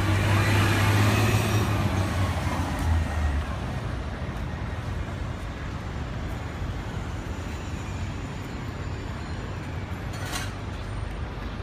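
City street traffic: a heavy vehicle's engine running close by for the first few seconds, then fading into steady traffic noise. A single short click near the end.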